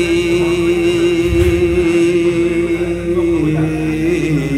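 A man chanting Arabic devotional verse into a microphone. He holds one long sung note, which steps down in pitch near the end.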